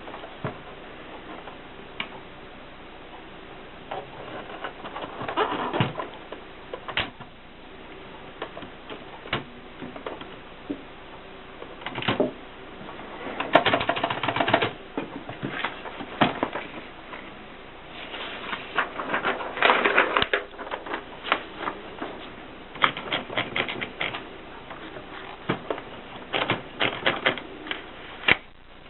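1960s Mercedes typewriter being typed on: irregular keystrokes, some single and some in quick flurries, with short pauses between them.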